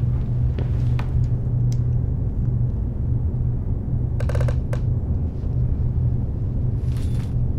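A steady, low droning rumble with a hum, under scattered small ticks and scrapes. A short rattling creak comes about four seconds in, and a brief breathy hiss near the end.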